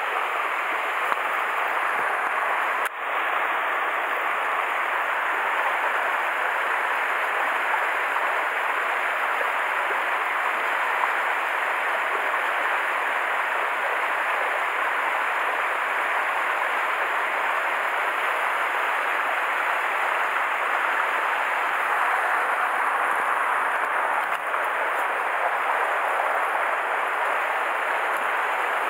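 Mountain stream rushing over granite boulders and small riffles, a steady even water noise.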